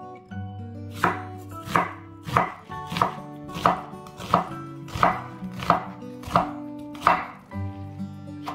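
Chef's knife slicing through Korean radish and then onion on a wooden cutting board, the blade knocking on the board in a steady rhythm of about one stroke every two-thirds of a second.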